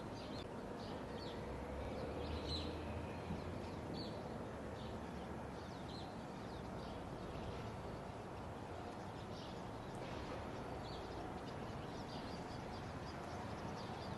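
Steady outdoor background hiss with faint, scattered chirps of small birds throughout. A faint low rumble sounds for a few seconds near the start.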